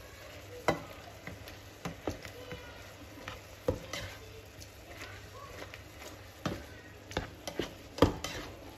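Spatula stirring and knocking against a frying pan of tomato and scrambled egg, over a steady sizzle. Sharp knocks come at irregular intervals, the loudest near the end.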